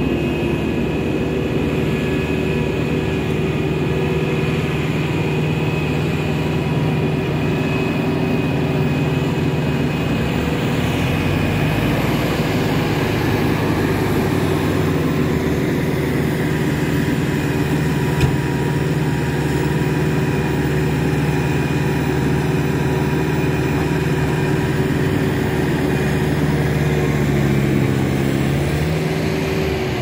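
Hidromek HMK 102 backhoe loader's diesel engine running steadily under working load. Near the end the revs climb for a couple of seconds, then fall back.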